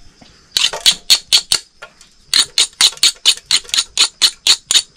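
A pestle pounding in a small mortar: a quick run of sharp knocks, a short pause, then steady strikes about four a second.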